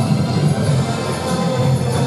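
Music playing steadily.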